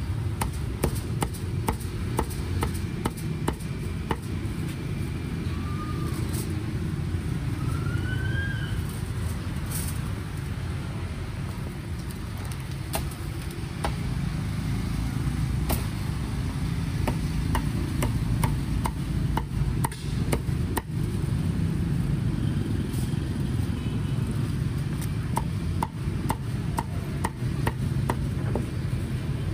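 Meat cleaver chopping crisp-skinned roast deboned pork leg on a thick wooden chopping block: irregular runs of sharp knocks. A steady low street-traffic rumble sits underneath.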